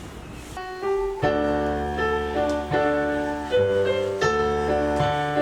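Keyboard playing a slow introduction to a song: a few single notes, then held chords from about a second in.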